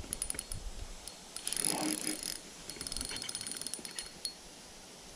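Sienna spinning reel clicking in three quick runs of rapid ticks while a big hooked gar is being fought on the line.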